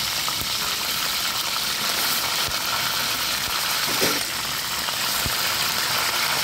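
Hot oil sizzling steadily around a tempering of mustard seeds, cumin and curry leaves in an aluminium pan, with a few faint pops.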